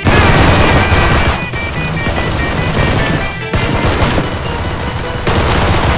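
Rapid automatic gunfire, fired in several long bursts, over background music.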